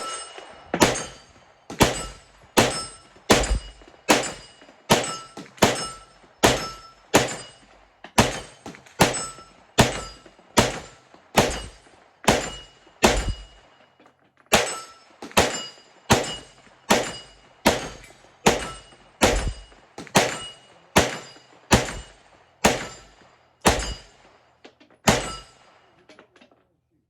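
A 9mm firearm shooting FMJ rounds: about thirty single shots at a steady pace of a little over one a second, each a sharp crack with a short ring, with a brief pause about halfway through the string.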